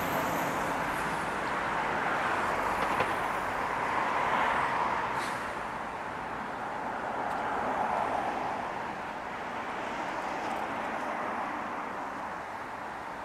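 City street traffic: a steady wash of passing cars' tyre and engine noise, swelling as vehicles go by, loudest around the start, about four seconds in and about eight seconds in.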